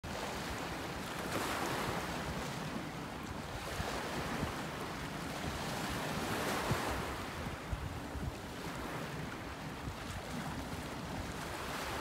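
Waves washing against a rocky shoreline, the surf swelling and fading every few seconds, with wind buffeting the microphone.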